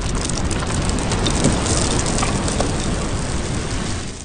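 Logo-intro sound effect: a dense crackling, rain-like hiss over a low rumble, fading out at the end.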